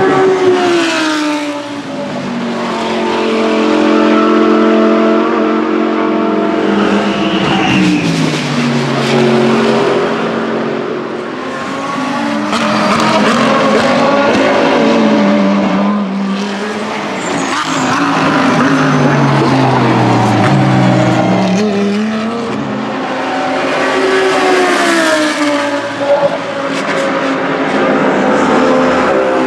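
GT3 race cars passing one after another, among them a Lamborghini Huracán GT3 and an Audi R8 LMS. Their engine notes rise and fall in pitch over and over, with several long falling sweeps.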